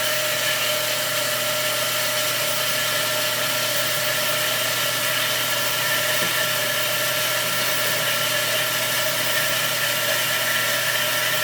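FMB Phoenix mitering band saw running at full speed, its variable-tooth blade cutting steadily through solid steel bar under hydraulic feed. A steady, even machine hum with several held tones over a hiss, unchanging throughout.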